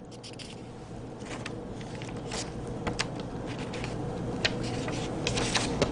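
Paper chart sheets being handled and shuffled, with scattered short rustles and crinkles, several close together near the end, over a steady low hum.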